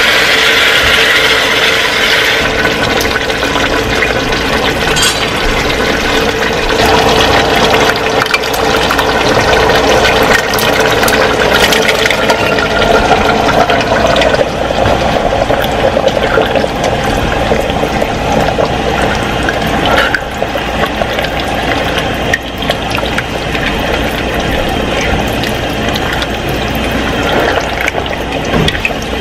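Chili ingredients cooking in a pot on a gas stove: a steady wet sizzling hiss, with a spoon stirring and scraping through diced tomatoes and beans.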